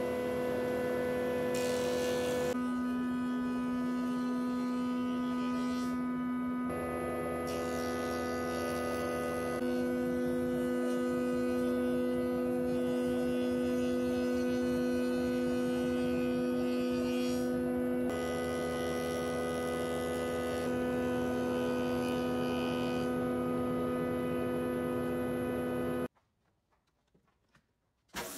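Taiyo woodworking jointer running with a steady humming whine, its tone shifting abruptly several times. It cuts off near the end, leaving near silence for about two seconds.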